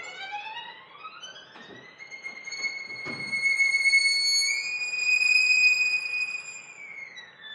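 Solo violin playing one long upward glissando that slides from a middle note into a high held tone. The tone steps up slightly about halfway through and slides down again near the end.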